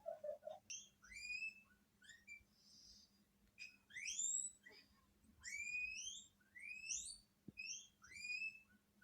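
Guinea pigs wheeking: a string of short, high whistle calls that sweep upward in pitch, about one every second.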